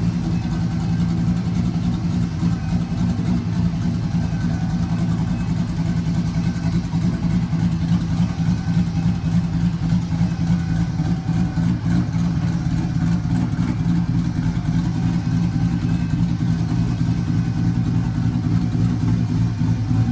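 S197 Ford Mustang drift car's engine running steadily, a low, even engine note.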